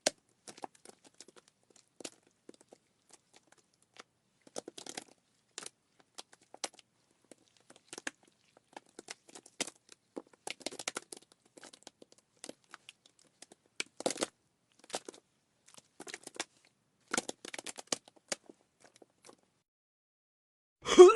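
Sparse, irregular crackles and clicks, some in quick clusters, broken by silent gaps; a sudden loud burst starts just before the end.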